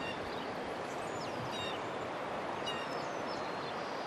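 Several small birds chirping and whistling in short calls over a steady, even outdoor rush of background noise.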